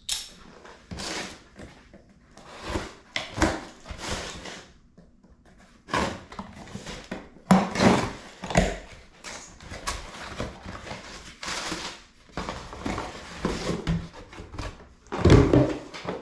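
Cardboard shipping box being opened and unpacked by hand: cardboard flaps scraping and rustling and plastic air-pillow packing crinkling, in irregular bursts that are loudest about halfway through and again near the end.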